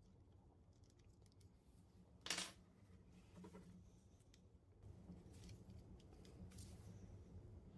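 Faint clicks and scrapes of an Allen key and small metal parts as the jigsaw's blade clamp is unscrewed and taken apart by hand, with one short, louder metallic scrape a little over two seconds in and light rattling near the end.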